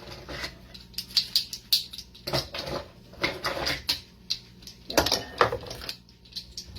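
Kitchen items being rummaged through while searching for an ingredient: an irregular run of light clicks, taps and knocks.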